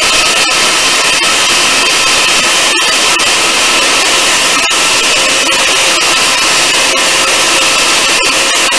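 Electric countertop blender running loud and steady, grinding onion and garlic in a little water, its motor whine holding an even pitch.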